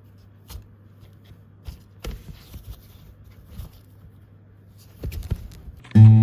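Scattered soft knocks and rustles over a faint steady low hum, then an acoustic guitar strum starts loudly just before the end.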